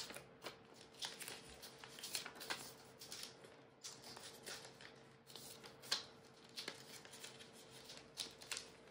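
Photocards and plastic binder sleeves being handled: faint, irregular crisp plastic rustles and small clicks as cards are slid into pocket pages, over a faint steady hum.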